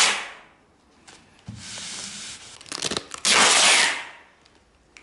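Adhesive tape pulled off its roll to join the seams of thin foam floor underlay: two rasping pulls, a softer, longer one about a second and a half in and a louder, shorter one just after three seconds.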